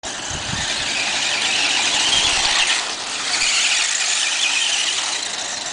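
Radio-controlled cars driving on a dirt track, their motors giving a steady high-pitched whine that dips briefly about three seconds in.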